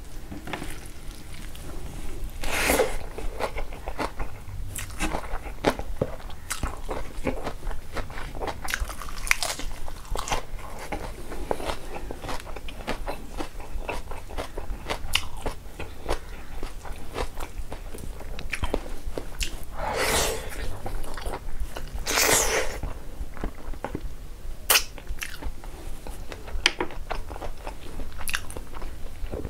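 Close-miked chewing and biting of pork and rice eaten by hand, full of short crunches and clicks. A few louder, longer sounds come about 3, 20 and 22 seconds in.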